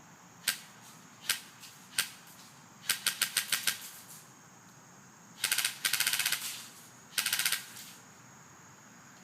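Airsoft M4 electric gun (AEG) shooting: three single shots, then a quick string of about eight shots and two full-auto bursts, the longest about a second.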